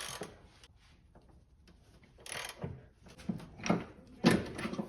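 A run of short knocks and clunks from hands-on work under the hood: the gearbox is being pushed up to take load off the motor mount. The knocks start about two seconds in, five or six of them over the next two seconds or so, the loudest near the end.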